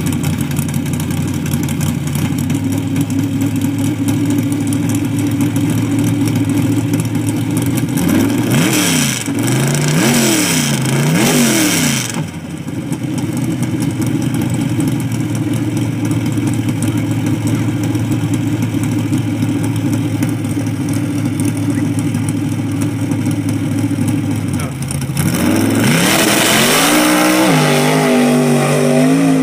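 A mud-bog Jeep's engine idling while staged, revved in three quick blips about eight to twelve seconds in, then back to a steady idle. Near the end it launches at full throttle, the engine note climbing as it pulls away through the mud.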